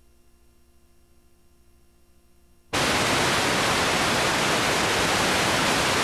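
A faint steady hum, then about three seconds in a sudden loud, even hiss of static noise.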